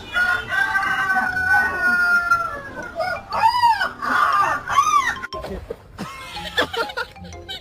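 An animal calling: one long held crowing-like call lasting about two and a half seconds, then several short calls that rise and fall in pitch.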